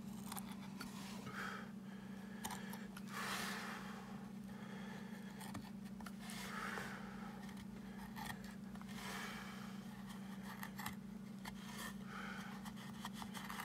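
Hand carving knife slicing and scraping through wood in short strokes every couple of seconds, cleaning up the cuts of a geometric carving, with faint clicks between strokes. A steady low hum runs underneath.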